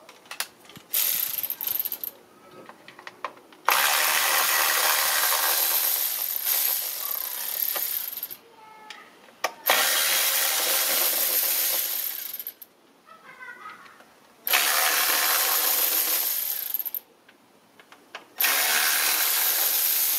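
Ratchet with a Torx 20 bit loosening and running out intake manifold bolts, in runs of one to four seconds with short pauses between.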